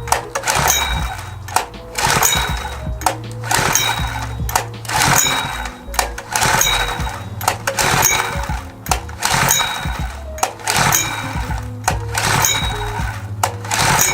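Background music with a steady beat and a bass line that steps between notes.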